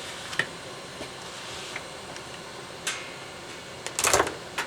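A few sharp clicks and taps over a steady hiss, with a quick cluster of louder clicks about four seconds in.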